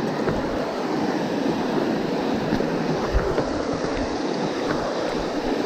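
Steady rush of river water pouring over rock ledges in a small rapid, with one low bump about three seconds in.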